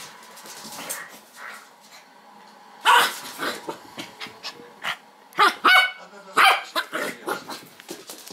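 West Highland white terrier barking in short repeated bursts, starting about three seconds in.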